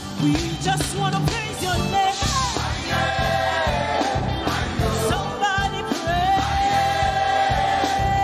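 Nigerian women's gospel choir singing a Christian praise song with a lead singer, backed by a drum kit keeping a steady beat. From about six seconds in, one long note is held.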